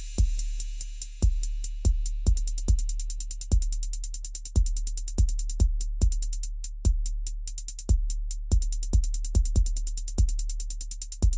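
Background electronic music with a drum-machine beat: a steady kick drum under a low bass line and rapid hi-hat ticks.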